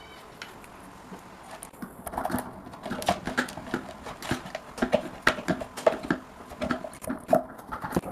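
A rapid, irregular run of light knocks and clicks, several a second, starting about two seconds in.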